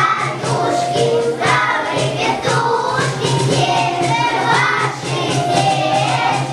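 A group of young children singing together in chorus over instrumental accompaniment with a steady beat.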